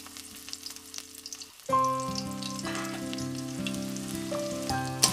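Chopped onions sizzling and frying in hot mustard oil in a kadai, with instrumental background music growing louder about a second and a half in.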